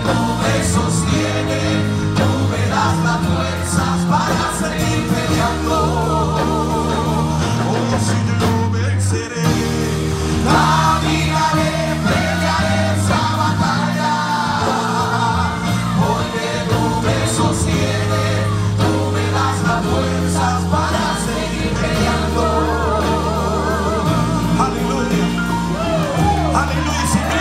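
Live gospel worship song: a group of men and women singing into microphones over a band with a steady bass line.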